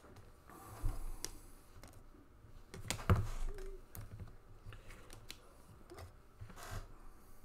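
Hard plastic card holders clacking as they are lifted off clear plastic display stands and handled. The sound is a scatter of light clicks and knocks, with one louder knock about three seconds in.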